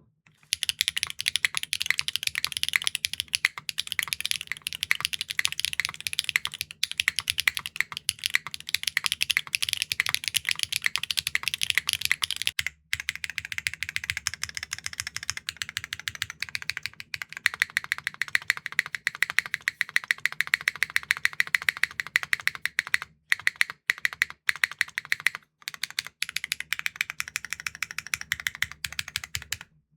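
Fast, continuous typing on a mechanical keyboard fitted with Keygeek Crepe linear switches (PBT stems), giving high, loud clacks. A brief break about 13 s in is followed by a slightly different tone, as from a change of setup.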